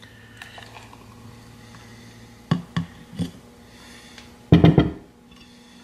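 A thick milkshake is poured from a blender jar into a plastic tumbler: three short soft knocks and plops, then one louder clunk about a second later, over a faint steady hum.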